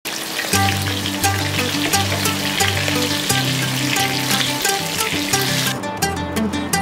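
Fish frying in hot oil in a pan, a steady crackling sizzle, over background music of held instrumental notes. The sizzle cuts off suddenly near the end, leaving the music.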